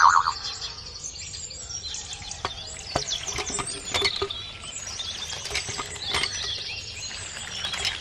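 Small birds chirping over and over, with a few sharp clicks scattered through.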